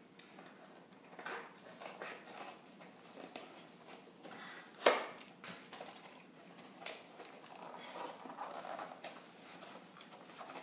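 Cardboard packaging rustling and scraping as a toy blaster's bipod is worked out of its box insert, with one sharp knock about five seconds in.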